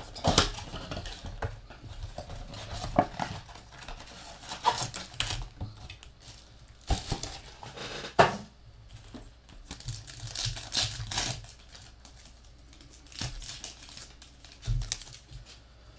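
Foil wrappers of Panini Mosaic 2020 football card packs crinkling and being torn open by hand, in irregular bursts with short pauses between.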